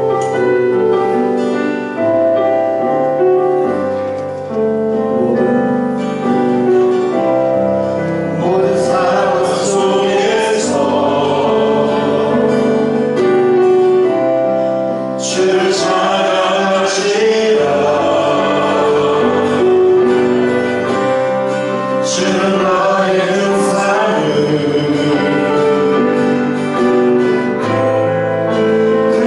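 Church praise team singing a worship song with keyboard accompaniment: held keyboard chords alone at first, with the voices coming in about eight seconds in.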